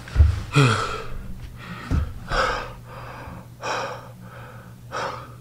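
A man breathing hard as he does push-ups, with four or five loud gasping breaths a second or two apart. A low thump near the start and another about two seconds in.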